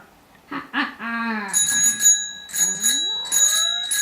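A short voice-like cry, then about a second and a half in a bicycle bell starts ringing in quick repeated strokes, with a rising glide under it near the end.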